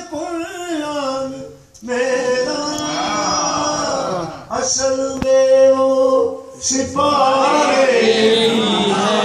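A man singing a devotional chant, unaccompanied and into a microphone, in long held, sliding phrases with short breaks between them.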